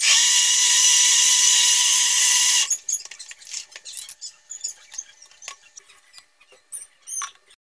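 Electric countertop blender running flat out, blending fruit juice, with a steady high whine; it cuts off abruptly after about two and a half seconds. Light clicks and knocks follow as the glass jug is lifted off the motor base.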